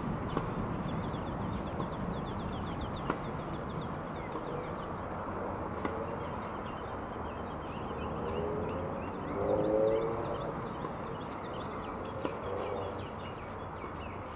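Outdoor ambience with birds chirping: a quick high trill in the first few seconds, then scattered high chirps. A few faint sharp taps sound irregularly, and a brief low pitched sound about nine to ten seconds in is the loudest moment.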